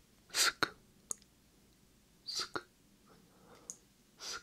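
Whispered "sk" mouth sounds made close to a binaural microphone: three short hisses about two seconds apart, each ending in a crisp click, with a soft mouth click between the first two.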